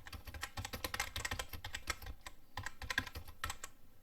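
Rapid clicking of typing on a computer keyboard, many keystrokes a second, with a couple of brief pauses.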